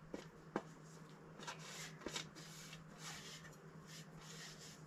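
Faint scraping and rubbing of fingers pushing spice powder across a stainless steel plate into a steel mixer jar, with a few light clicks of metal.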